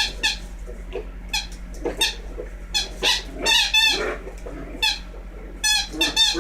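Great Pyrenees–pit bull mix puppy making about a dozen short, high-pitched squealing yips in quick groups while playing, some of them wavering.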